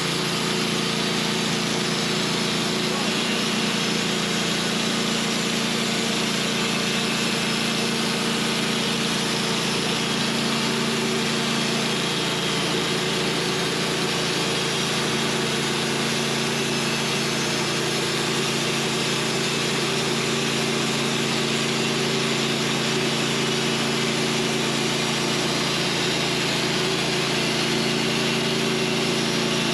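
Manual portable band sawmill's engine running at a steady speed, with an even hiss of the band blade cutting through a white pine log.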